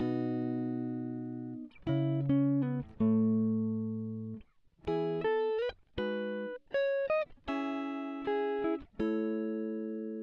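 Background music: a clean guitar picking slow chords and single notes, each struck and left to ring out and fade before the next.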